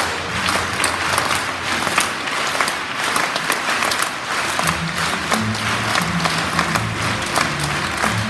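Concert-hall audience, many of them children, applauding. About halfway through, low bass notes of music start up beneath the clapping, which carries on.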